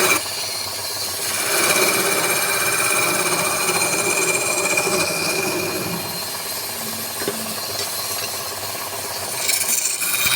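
Woodturning lathe running while a tool works the spinning wood, a steady grinding, rasping noise with a high whine through most of it.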